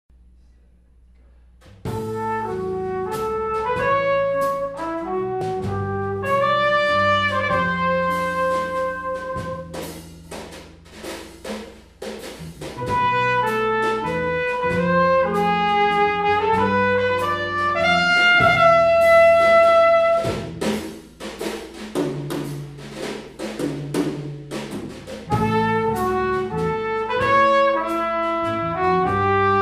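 Jazz quartet playing, starting about two seconds in: a brass horn leads the melody over guitar, bass and drum kit with cymbals.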